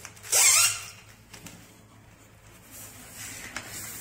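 A hard strip scraping against the desk drawer as it is fitted: one sharp scrape about half a second long. Near the end, quieter rustling as the clear desk sheet is handled.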